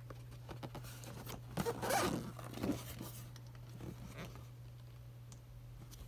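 A cardboard toy box being handled and turned over in the hands, its card rubbing and scraping. The scraping is loudest for about a second and a half, starting about one and a half seconds in, with a few light taps after it.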